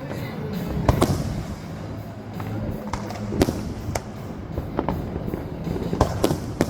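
Aerial fireworks bursting in a string of sharp bangs, the loudest about a second in and about three and a half seconds in, with more bangs near the end. Music plays underneath.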